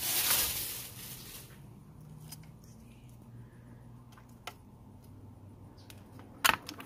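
Plastic shopping bag rustling and crinkling as it is pulled about, dying away after about a second and a half. After that, faint handling of small items with a few light clicks, and one sharper click near the end.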